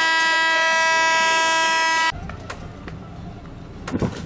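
A boat's air horn sounds one long, steady note and cuts off suddenly about two seconds in. After it comes a quieter rush of wind and water, with a couple of sharp knocks near the end.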